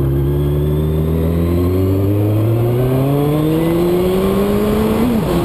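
Suzuki Bandit 1200S inline-four engine accelerating, its pitch climbing evenly for about five seconds, then dropping sharply near the end as the rider changes gear and the revs fall.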